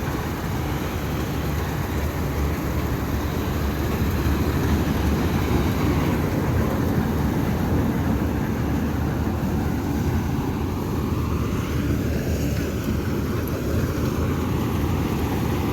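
AVTAR 6500 combine harvester running steadily while harvesting mung beans, a loud continuous machine noise that is strongest in the low pitches.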